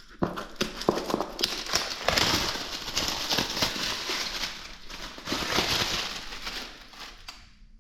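A small cardboard box being opened by hand: rustling and scraping of packaging with many irregular clicks and knocks, dying away near the end.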